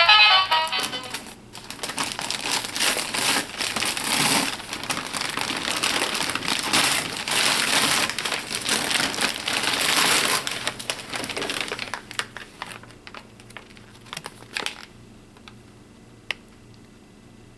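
A surprise egg's wrapper crinkling as it is peeled off by hand for about ten seconds, followed by a few light clicks near the end.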